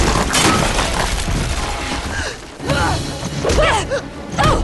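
Action-film soundtrack: music with crashing impacts and a dense rumble in the first second or so, as a blast of dust and debris fills a rock cave. Short pitched sounds follow near the end.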